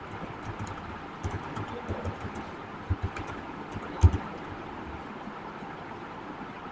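Computer keyboard typing: a quick run of key clicks, ending with a single louder keystroke about four seconds in, the Enter key submitting the search. A steady background hiss runs underneath.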